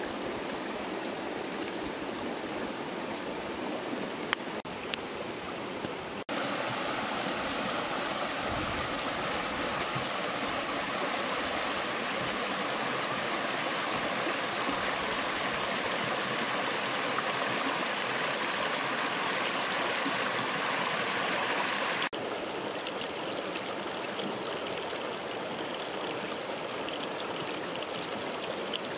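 River water running in a steady rush, stepping up louder about six seconds in and dropping back abruptly about twenty-two seconds in. A few sharp clicks sound around four to five seconds in.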